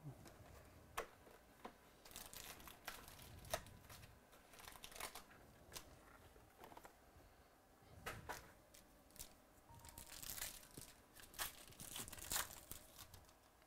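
Foil packs of 2018 Chronicles Baseball trading cards being torn open and crinkled by hand: scattered short crackles and tearing rustles.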